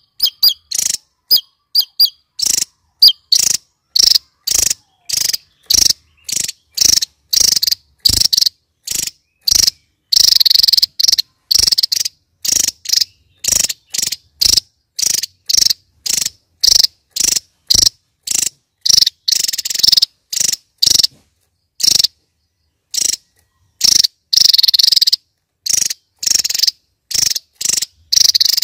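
Javan tesia singing in the rapid-fire 'nembak' style: short, high-pitched chirps repeated about twice a second, with a few longer trilled runs, and silence between the phrases.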